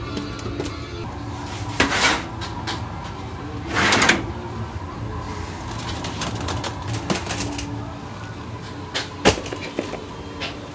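Kitchen work clatter: a few sharp knocks and a short scraping burst about four seconds in, over a steady low hum.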